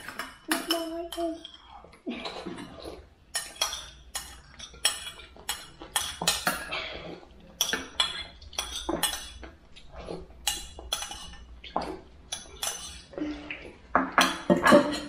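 Spoons and other cutlery clinking and scraping against bowls and plates as people eat, in many short, irregular clicks.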